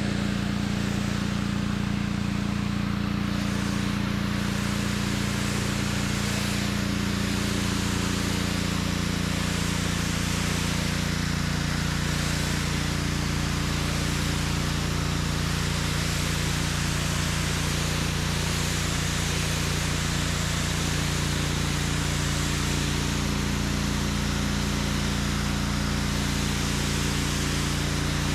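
Pressure washer running steadily: its engine's even drone under the hiss of the high-pressure water spray.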